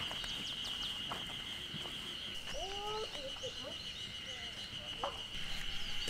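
Wild birds calling and chirping in woodland, many short high notes with a few lower curved calls near the middle, over a steady high-pitched drone.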